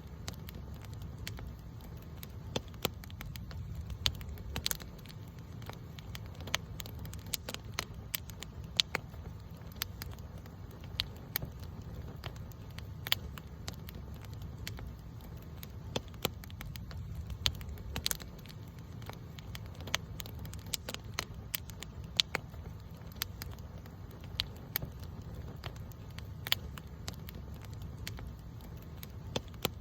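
Wood campfire crackling: irregular sharp pops and snaps, several a second and some louder than others, over a steady low rumble.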